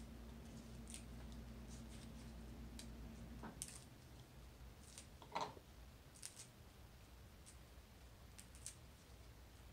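Dry leaves torn and crumbled by hand, with faint irregular crackles as the pieces drop into a small jar. A low steady hum stops about a third of the way in.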